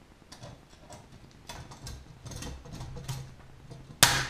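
Hand pop-rivet gun being squeezed, its jaws clicking in a few small strokes, then a single loud sharp crack about four seconds in as the blind rivet's mandrel snaps and the rivet sets in the wing rib.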